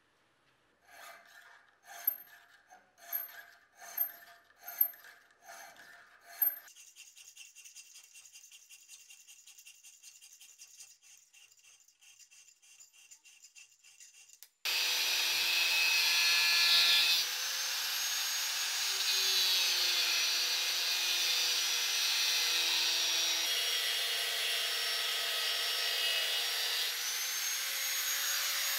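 Hand strokes rasping on steel, about one a second, then a fainter, quicker rasping. About halfway through, an angle grinder starts suddenly and runs steadily on the steel knife blade clamped in a vise. Its whine shifts slightly in pitch now and then.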